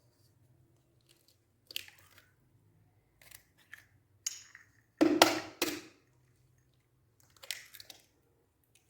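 Two eggs being cracked and added to the mixture: a run of short taps, shell cracks and crunches, the loudest about five seconds in. A faint steady low hum runs underneath.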